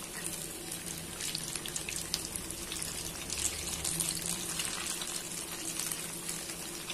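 Egg-coated tofu pieces sizzling in hot oil in a wok: a steady hiss with scattered crackles.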